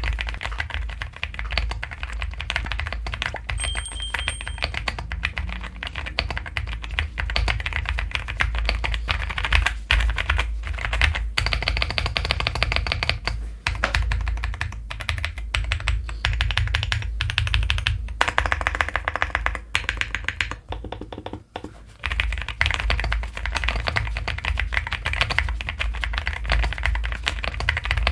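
Monsgeek M1 V5 aluminium-cased mechanical keyboard, in fully stock form (factory switches and keycaps), typed on continuously in a fast, steady stream of keystrokes, with a brief lull about three quarters of the way through.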